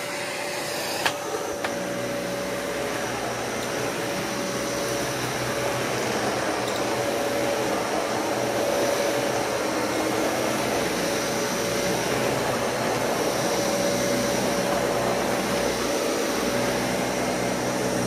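Dyson Cinetic Big Ball bagless upright vacuum running steadily as it is pushed over a woven rug: a constant motor whine over the rush of air, with a couple of sharp clicks about a second in.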